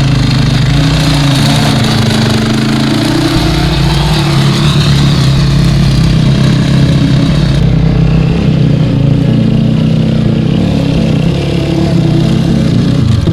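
Dirt bike engine running steadily, its pitch shifting now and then.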